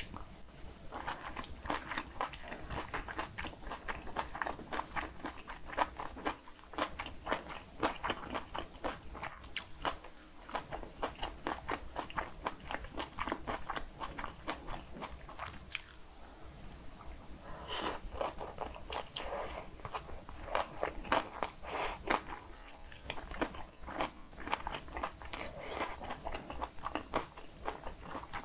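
Close-miked mouth sounds of eating cockle and spicy raw-radish-salad bibimbap and kimchi soft tofu stew: steady chewing with many quick crunches and wet clicks.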